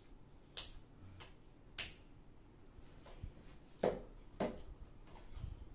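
A handful of separate sharp clicks and small taps, about five over several seconds, the loudest about four seconds in, with a couple of faint low knocks.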